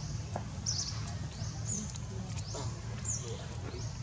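Baby monkey giving short, high-pitched rising squeaks, about one a second, over a steady low hum.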